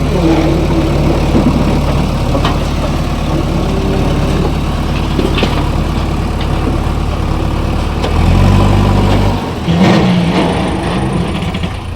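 Diesel engines of a JCB 3DX backhoe loader and farm tractors running steadily during loading of demolition rubble, with a few sharp knocks. The engine note swells for about a second just past the eight-second mark, then the deep rumble drops away.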